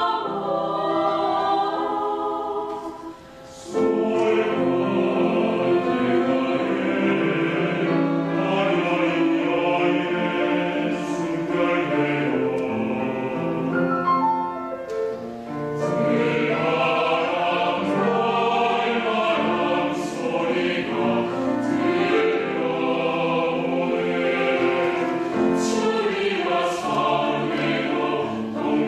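Mixed choir singing a Korean choral piece in several voice parts, with a brief pause about three seconds in before the voices come back in together.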